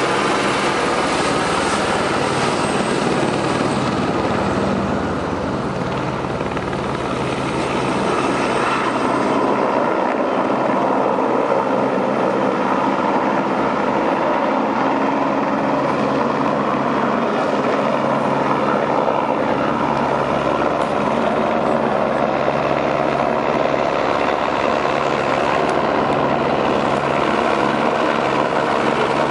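Light helicopter flying overhead: its rotor and engine run steadily with a low, even throb, dipping slightly in loudness a few seconds in and then coming back.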